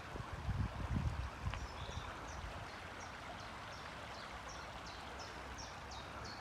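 Small stream running steadily, with a bird calling short, high, falling notes about twice a second from about two seconds in. A few low rumbles on the microphone in the first second and a half.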